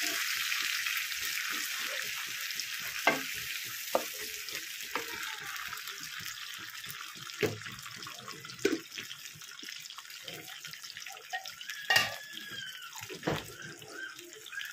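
Tomato purée and masala sizzling in hot oil in a pan, a steady hiss that slowly dies down, while a wooden spatula stirs and now and then knocks and scrapes against the pan, hardest near the end.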